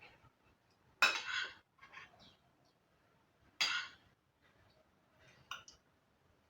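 Cutlery scraping and clinking against a plate of pasta: two louder scrapes, about a second and three and a half seconds in, and a light clink near the end.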